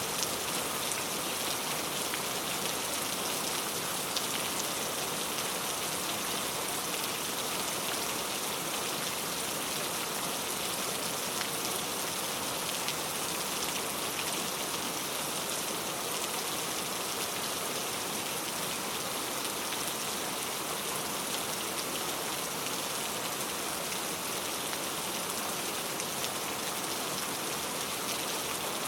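Very heavy rain falling steadily, a dense even hiss of many drops hitting a surface.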